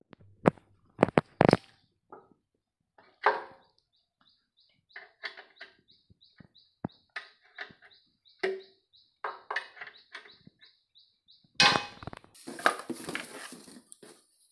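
Metal clinks and knocks of a ring spanner on the oil drain plug of a diesel engine's sump as the plug is loosened for an oil change, with a regular high chirping, about three a second, through the middle. Near the end, a plastic basin being handled and scraped under the engine rustles loudly.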